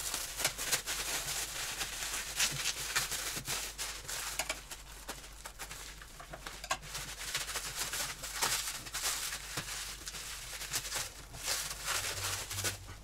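Clear plastic stretch wrap being cut and pulled off a package, crinkling and tearing with many irregular crackles and snips.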